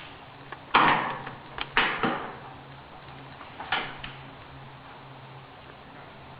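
Four sharp clacks from airsoft guns firing single shots, each with a short echoing tail: one about a second in, two in quick succession near two seconds, and one near four seconds.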